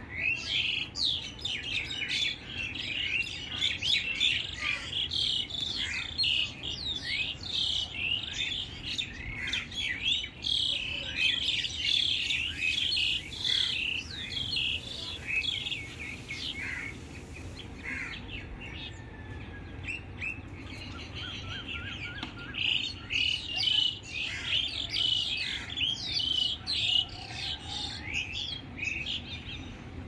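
Morning chorus of many small birds: dense, overlapping short chirps and tweets. It thins out for a few seconds past the middle, then picks up again.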